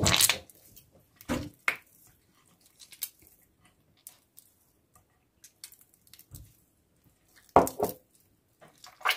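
Hands squeezing and mashing soft margarine with oil in a glazed ceramic dish: scattered squishes and short knocks against the dish, with quiet stretches between.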